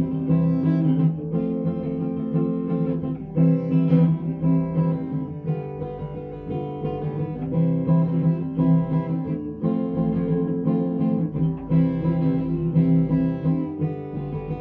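Acoustic guitar strumming chords, an instrumental passage between sung verses of a worship song.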